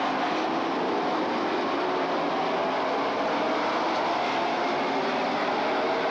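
Short-track stock cars racing past at speed: several engines at once, making a steady drone whose pitches waver up and down as the cars go through the turns and down the straight.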